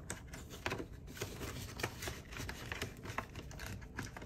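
Faint rustling and scattered soft clicks of paper banknotes being handled and slid into a cash envelope in a ring binder.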